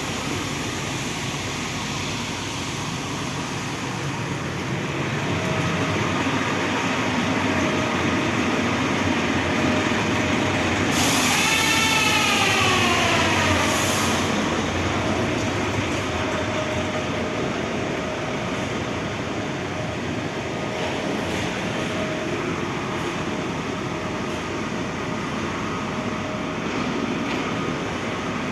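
Semi-truck rumbling at crawling speed, heard from inside the cab, growing louder over several seconds. About eleven seconds in, a squeal falls and then rises in pitch, with two short hisses.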